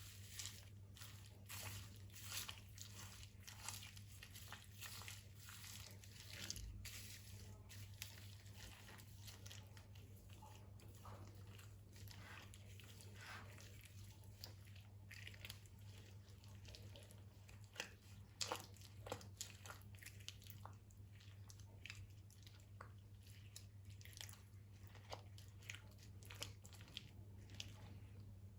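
Slime being worked by hand, with faint, irregular crackles, clicks and squishes throughout over a low steady hum.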